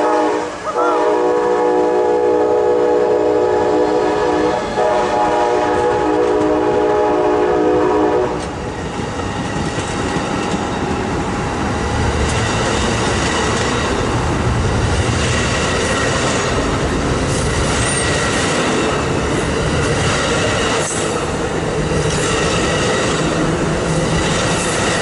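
An Amtrak ALC42 locomotive pulling the departing Coast Starlight sounds a long multi-note air horn for about eight seconds, broken briefly twice. The train then rumbles steadily past on the rails.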